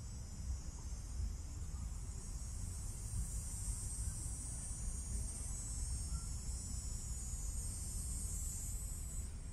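High-pitched insect drone, swelling gradually and then fading near the end, over a steady low rumble.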